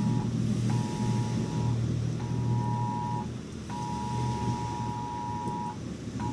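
Phone's Wireless Emergency Alert attention tone for a tornado warning: a two-pitch beep sounding in a repeating pattern of one-second and two-second tones with half-second gaps. Under it runs a low rumble of thunder and the hiss of rain.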